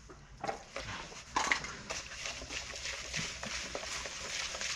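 Gluten carp bait being mixed by hand with water in a plastic bowl: small knocks and scrapes, a sharper knock about one and a half seconds in, and a steady rustle through the second half.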